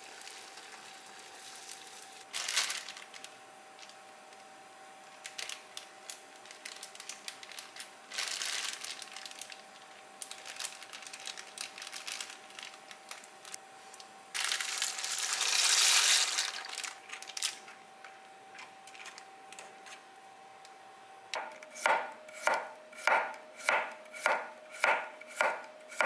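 Water boiling hard in a pot, with several rushes of bubbling, the loudest about halfway through as salt goes in. Near the end a kitchen knife slices cucumber on a bamboo cutting board: about nine crisp strokes, roughly two a second.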